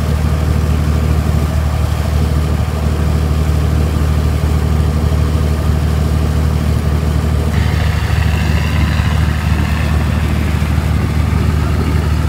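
Fishing boat's diesel engine running at a steady, even drone. About halfway through, a higher hiss joins it.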